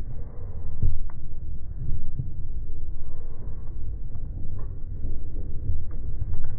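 Fireworks display going off: repeated low booms over a continuous rumble, with a few sharp cracks.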